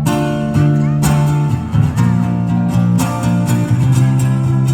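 Band music in an instrumental gap between sung lines, led by strummed guitar chords that change every second or so.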